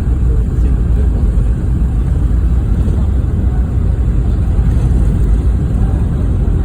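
Steady low rumble inside the cabin of a Boeing 717-200 airliner in flight: engine and airflow noise, even and unbroken.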